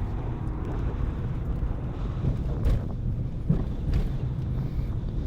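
Car driving along a road: a steady low rumble of engine and tyres with wind noise on the microphone, and a couple of brief knocks around the middle.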